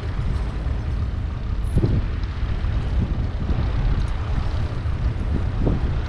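Wind buffeting the microphone: a loud, uneven low rumble with no steady tone.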